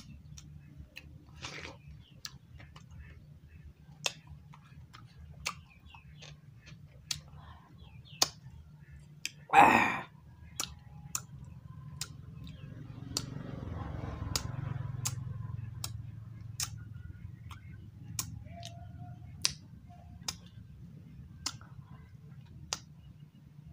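Close-miked chewing of watermelon: wet mouth clicks and lip smacks coming irregularly about once a second, with one much louder, short wet mouth noise about ten seconds in.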